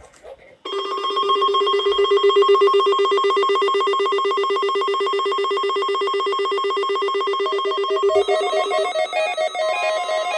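Electronic alert tone, loud and rapidly trilling at one steady pitch, starting about a second in; near the end it changes to a run of stepping electronic notes like a ringtone melody.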